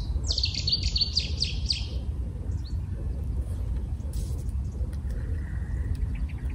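A small bird singing a fast run of high chirping notes for about two seconds near the start, over a steady low rumble.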